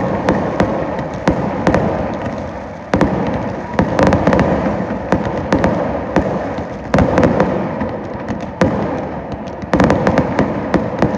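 Fireworks display: a fast string of sharp bangs, with bigger booms every couple of seconds.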